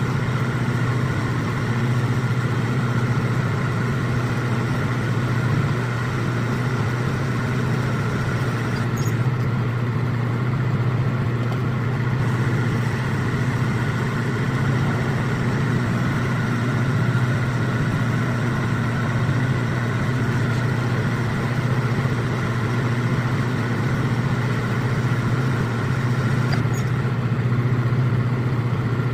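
Metal lathe running steadily while threading a rifle barrel to 5/8-24, a continuous machine hum with a steady low drone; the audio is played back at double speed.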